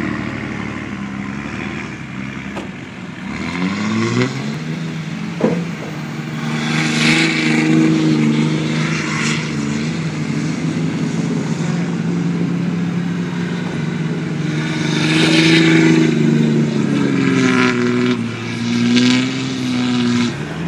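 Straight-piped, tuned 5.9 Cummins turbo-diesel in a Dodge Ram 2500 revving hard while the truck spins donuts. The engine pitch climbs about three seconds in, then holds high, swelling and dipping, with several bursts of rushing noise over the top.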